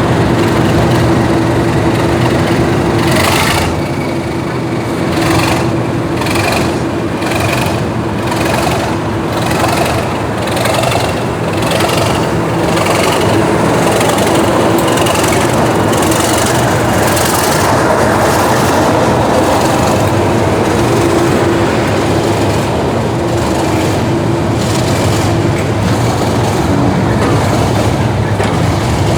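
Heritage train on the North Yorkshire Moors Railway running close by: a steady loud rumble with a regular beat of sharp strokes about once a second. A faint whine slowly rises in pitch over the first half.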